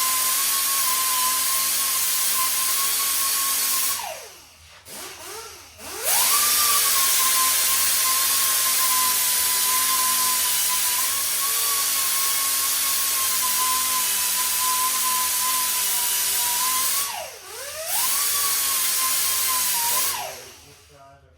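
A handheld grinder runs at full speed with a steady high whine while grinding down a fresh weld on a steel mini bike frame. Twice it is let off and spins down, then revs back up, and it winds down for good near the end.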